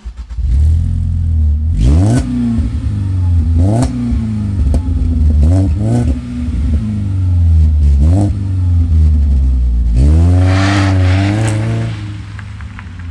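2012 Ford Focus 3 engine through a custom split dual exhaust with tuned mufflers, idling and being revved about six times, each rev a rising sweep, the longest near the end. It fades as the car pulls away.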